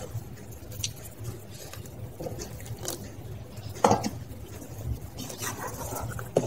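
Melted butter poured into thick cake batter and folded in with a spatula in a stainless steel bowl: soft wet stirring and squelching, with a few sharp taps of the spatula against the bowl, the loudest just before four seconds in.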